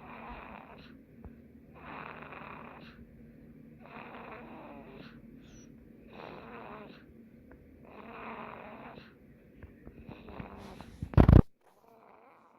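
Steady snoring, one rasping breath about every two seconds. Near the end a sudden loud knock, the loudest sound, cuts in, and the snoring stops after it.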